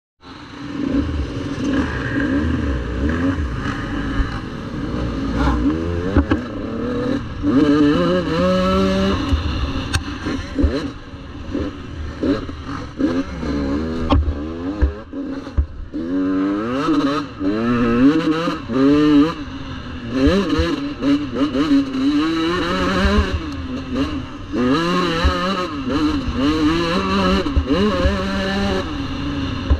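Motocross bike engine heard from on board, revving up and dropping back over and over as the rider accelerates, shifts and rolls off around a dirt track, with wind rumbling on the microphone.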